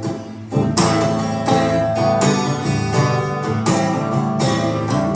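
Acoustic guitar strummed in a steady rhythm of chords, an instrumental passage between sung lines. It comes back in strongly about half a second in, after a brief lull.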